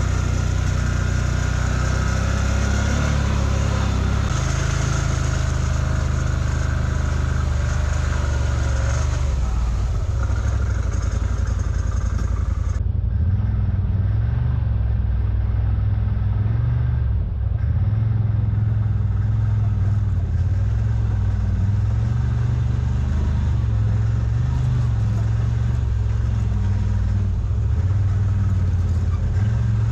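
CFMoto ZForce 950 side-by-side's V-twin engine running at low, changing speed, its pitch stepping up and down as it drives the trail. A hiss over it drops away suddenly about halfway through.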